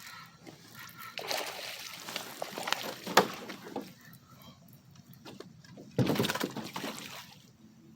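Water splashing and sloshing in two bursts as a hooked fish thrashes at the surface on the line, with a sharp knock in the middle of the first burst.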